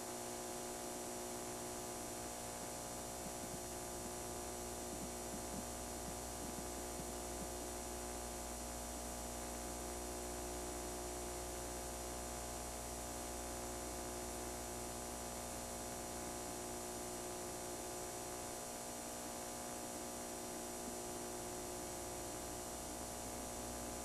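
Steady electrical mains hum with a layer of hiss, with no tone or voice.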